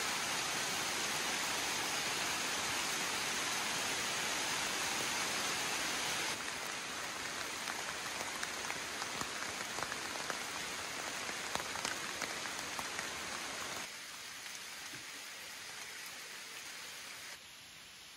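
Rain falling on the leaves of a summer forest: a steady hiss of rain with individual drop strikes heard in the middle. It steps down in loudness about six seconds in, and twice more near the end.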